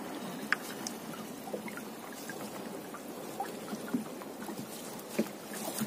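Gill net being hauled by hand over the side of a small boat: water trickling and dripping off the wet net, with small scattered taps and knocks.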